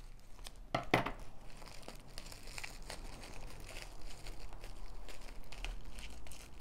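Plastic wrapping crinkling as it is worked loose by hand from around a plant cutting's stems and moss-packed roots, with two sharp clicks about a second in.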